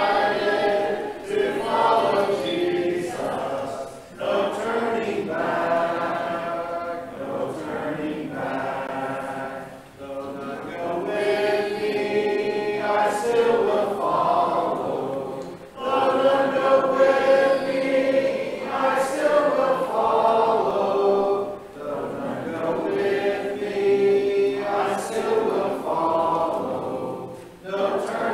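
Congregation singing a hymn a cappella, many unaccompanied voices together. The hymn moves in sustained phrases, with a short breath between phrases about every six seconds.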